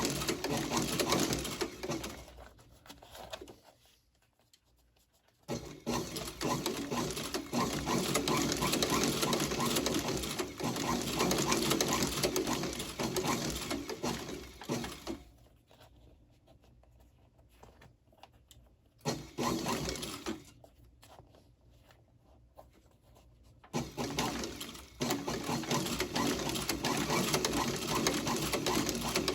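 Leather patcher sewing machine stitching through leather in quick, even runs that stop and start several times: long runs at the start, in the middle and near the end, with a brief burst between pauses.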